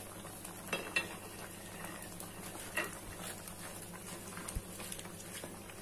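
Wooden spatula stirring water spinach into simmering broth in a granite-coated pan, with a few light knocks of the spatula against the pan over a faint steady bubbling.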